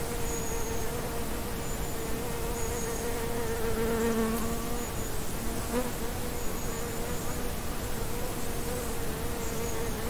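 Flying insects buzzing steadily, a hum with several overtones that swells for a second or so about four seconds in, over a soft hiss.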